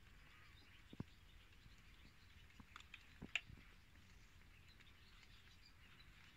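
Near silence with a few faint clicks and smacks of kittens eating from a plate, one about a second in and a small cluster around three seconds in.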